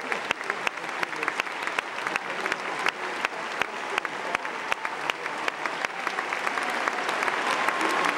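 Large theatre audience applauding steadily, with sharp individual claps close by standing out from the dense mass of clapping.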